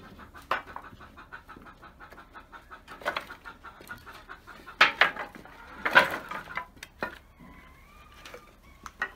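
Chickens clucking, with several loud knocks and clatters from wooden slats being handled; the loudest come about five and six seconds in.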